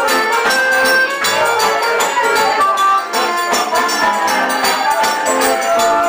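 Live forró band playing: accordion and acoustic guitar over a quick, even percussion beat.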